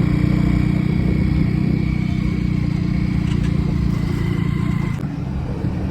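Motorcycle engine running steadily while riding, the level easing a little about five seconds in.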